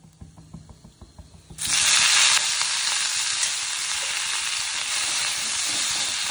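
Faint crackle of pepper and cumin in hot oil. About a second and a half in, a loud sizzle starts suddenly as freshly washed, still-wet thuthuvalai leaves go into the oil, and it carries on steadily as they fry.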